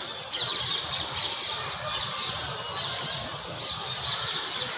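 Birds squawking and chirping in quick high-pitched clusters that repeat every half second or so, over a steady low rumble.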